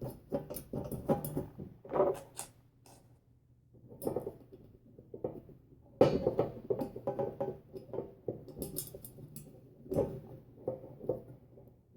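Irregular small metal clicks and clatter as little bolts are fitted and the sheet-metal parts of a bathroom exhaust fan are handled during reassembly, with a short lull partway through.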